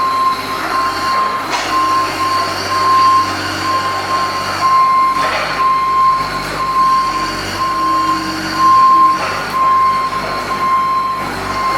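John Deere 17D mini excavator running and working. A steady high-pitched whine comes and goes over the engine, with a few louder surges.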